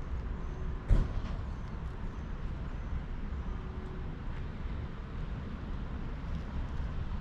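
Steady low outdoor rumble, with one sharp knock about a second in.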